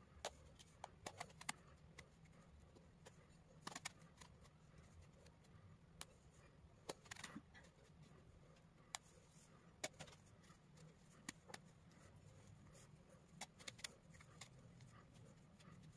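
Faint, irregular knife taps on a cutting board as an eggplant is cut into slices, each a short sharp click.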